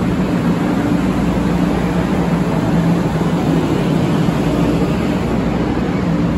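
Steady hum of a shinkansen train standing at the platform, with a couple of low, unchanging tones running through it.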